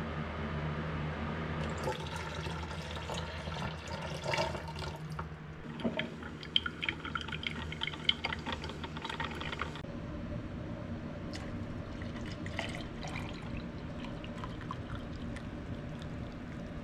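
Mr. Coffee drip coffee maker gurgling and dripping as it brews, with a couple of sharp clicks, after a steady low hum at the start; later, coffee poured from the glass carafe into a stainless-steel vacuum flask.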